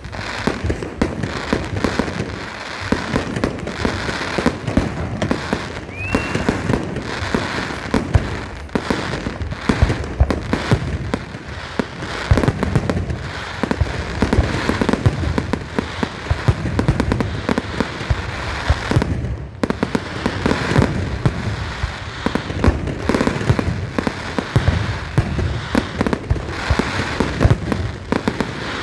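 A fireworks display: a dense, continuous barrage of shell bursts and crackling bangs, one on top of another. About six seconds in, a short rising whistle is heard among them.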